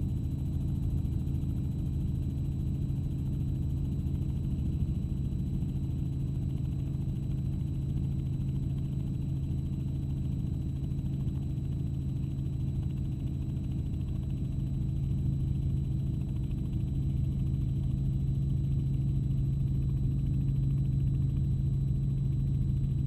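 Steady engine and rotor drone of the camera aircraft heard from inside the cabin, a low constant hum with a faint steady high whine above it and no change in pace, growing slightly louder in the second half.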